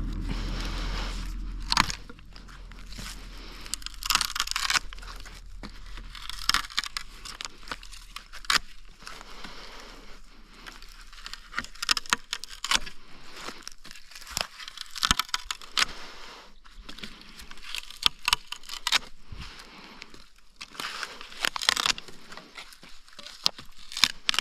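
Dry twigs, leaves and branches crackling and rustling as they are handled, with irregular sharp snaps. A low hum runs for the first couple of seconds and then stops.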